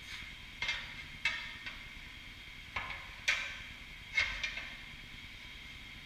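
A steel tire tool clanking against a tractor wheel and tire during a farm tire change: about seven sharp metal strikes, irregularly spaced, each with a brief ring, the loudest a little past three seconds in.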